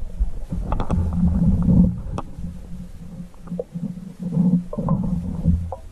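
Muffled low rumbling that swells and fades, with a few sharp clicks, picked up underwater through a GoPro's waterproof housing in a stone well.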